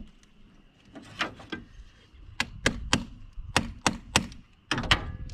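Sharp knocks of pounding on a battery terminal clamp to force a better connection for cranking: about ten blows in quick groups of two and three.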